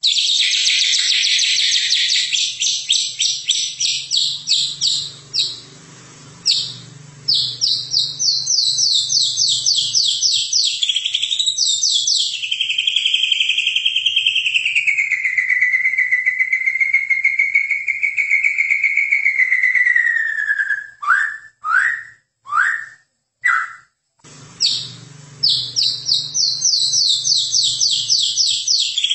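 White-rumped shama (murai batu Medan) singing. Its song opens with fast rapid-fire trills, moves to a long wavering whistle that slides down in pitch, then gives a few short, sharp separate notes before the fast trills return.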